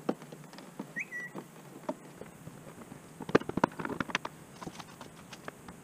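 Plastic clicks, taps and light knocks as hands pry pop rivets and pull loose the plastic body panels of a Honda Rancher 350 ATV. The clicks are busiest about three to four seconds in.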